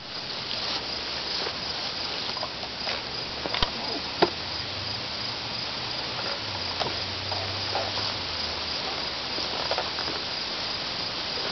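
Steady high chirping of field insects, with two short faint clicks about three and a half and four seconds in.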